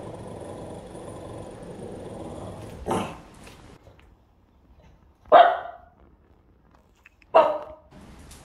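Pug growling low, then barking: a softer bark about three seconds in and two loud, sharp barks about two seconds apart near the end. They are alarm barks at a person lying still in a werewolf mask.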